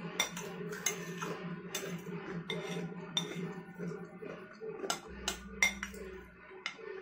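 Metal spoon scraping and clinking against a glass bowl while scooping up food, a string of sharp, irregular clinks.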